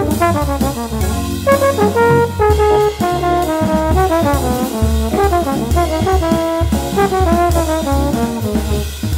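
Small jazz group of drums, organ, tenor saxophone and trombone playing, with a horn line of quick notes led by the trombone over the organ's bass line and the drum kit's cymbals.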